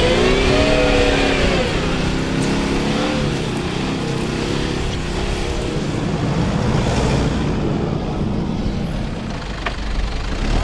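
Car engine revving up and down for the first few seconds as the car struggles, stuck in soft desert sand in low gear, under a steady rushing noise that carries on after the revving eases.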